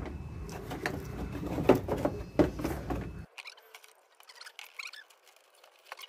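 Knocks, clicks and rustling of hands working wires and the motor into an open washing-machine cabinet. About three seconds in the low rumble cuts off abruptly, and faint quick high chirps and squeaks follow.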